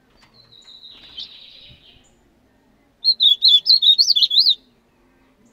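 Songbird singing: a soft high trill in the first two seconds, then a loud phrase of quick up-and-down warbled notes about three seconds in, lasting about a second and a half.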